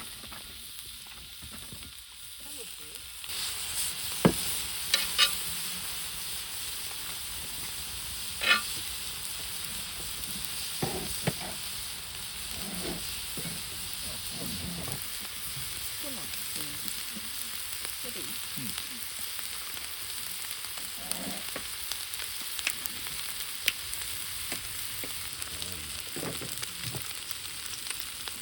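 Food sizzling as it fries in a pan, a steady hiss that starts about three seconds in, with occasional sharp clicks and light knocks of utensils.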